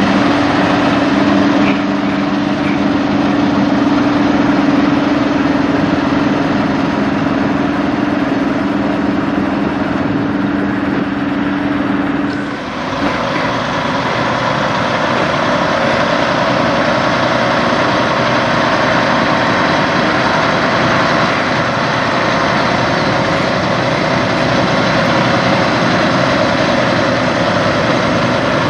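Diesel engines of Kenworth semi trucks running at low speed as they move past. The first truck gives a steady low hum. About halfway through the sound changes abruptly to a second truck's engine, noisier and without the hum.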